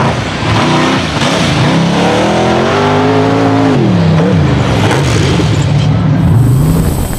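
Rock bouncer buggy's engine revving hard on a steep dirt climb: the revs rise over the first few seconds, hold high, drop, then surge up and down several times as the throttle is worked.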